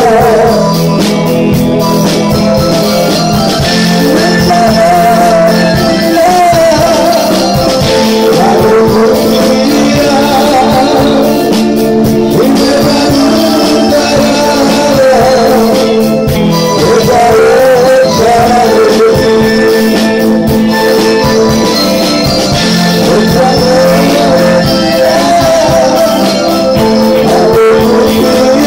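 A live band playing a slow song: electronic keyboard, drum kit with cymbals and electric guitar, with a man's voice singing a wavering melody over them.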